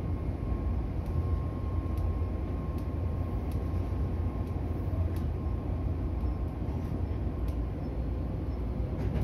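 Interior running sound of a Meitetsu 3300 series electric commuter train underway: a steady low rumble of wheels and running gear with a faint steady whine over it, and a few light ticks.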